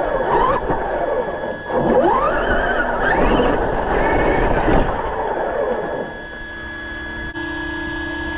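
Electric RC monster truck's brushless motor whining up and down in pitch as the throttle is worked, over the noise of tyres on the ground; for the last couple of seconds it settles into a steadier, quieter whine.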